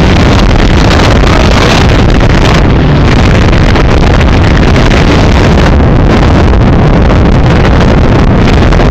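Baja Outlaw 20 speedboat underway at speed. Its engine and the water noise come through as a loud, steady roar mixed with heavy wind buffeting on the microphone.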